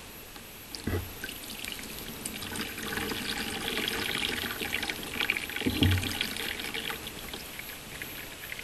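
Water poured and trickling onto a seat pad glued into a plastic kayak's cockpit, splashing and running off toward the drain. Two dull thumps, about a second in and near six seconds.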